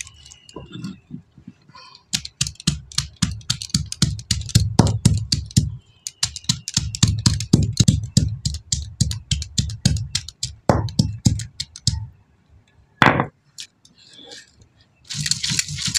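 Stone pestle (the cylindrical nora) knocking rapidly on a stone grinding slab (sil), crushing garlic, shallots and dried chillies for a spice paste: several strikes a second, pausing briefly about six seconds in and stopping about twelve seconds in, followed by one louder knock.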